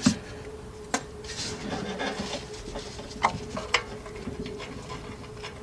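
Metal exhaust parts and bolts being handled and fitted under a truck: a few sharp metallic clinks spread through, over low rubbing and rustling.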